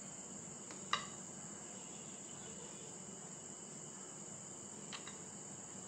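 Crickets chirring steadily with a high pitch in the background. A light click about a second in, and a fainter one near the end, from a steel spoon against the dish.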